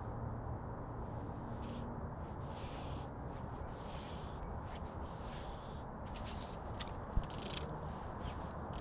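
Fly line being stripped in by hand through the rod guides, a run of short rasping zips at irregular intervals of about half a second to a second, over a steady low rumble. A single sharp knock about seven seconds in.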